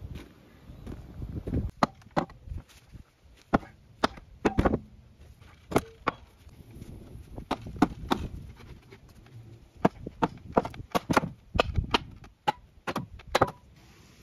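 A long-handled tool striking the weathered wooden boards and posts of an old animal pen as it is knocked apart: about twenty sharp wooden knocks at an irregular pace, stopping shortly before the end.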